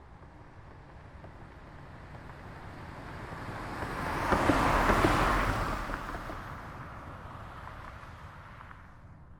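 A car passing by: tyre and engine noise that builds up as it approaches, is loudest about five seconds in, and fades as it moves away.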